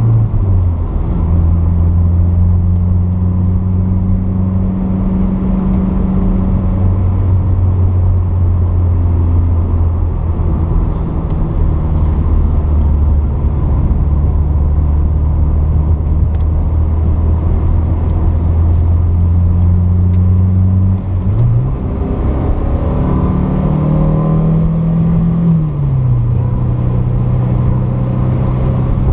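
1981 Porsche 944's 2.5-litre four-cylinder engine under way: a steady low drone at cruising speed after a drop in revs about a second in. Near the end the revs jump up and climb under acceleration for a few seconds, then fall back at a gear change.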